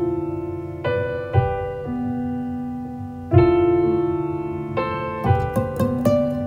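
Slow solo piano chords, each struck every second or two and left to ring out and fade, played back through JTR Noesis 215RT horn-loaded tower speakers and picked up by a phone microphone.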